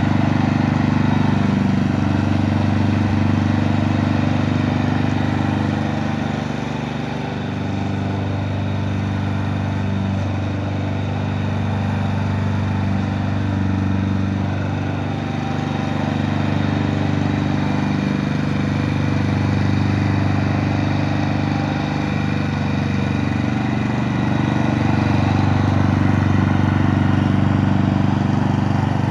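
Honda HRG 466 SK Izy walk-behind lawn mower's petrol engine running steadily, dipping slightly in loudness about seven seconds in.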